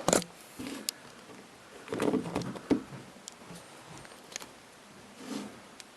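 Scattered small clicks and knocks with soft rustling: a mobile phone and its charger being handled.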